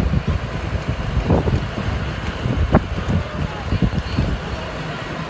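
Wind buffeting the microphone in uneven gusts, with faint voices of people around the track underneath; the gusting eases near the end.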